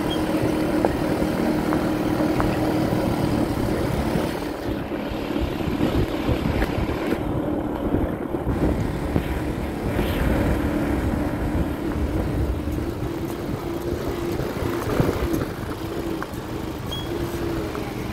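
A vehicle engine running steadily, a constant low hum over a rumbling background.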